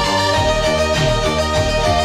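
Background music with a steady beat under a held melody line.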